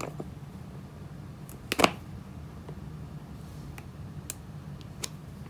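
Sparse small clicks and taps of a screwdriver tightening the screw inside a Xiaomi Bluetooth selfie stick, with one louder click about two seconds in. Tightening this screw stiffens the joint so the phone holder stops drooping.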